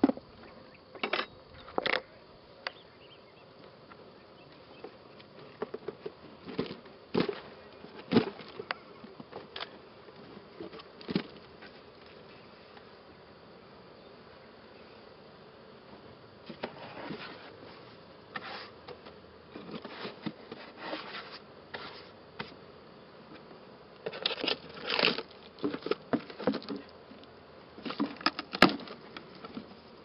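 Italian honeybees buzzing as they are shaken out of a cardboard box into an open hive, with irregular knocks and rustles from the box. The knocks come in clusters, busiest near the end.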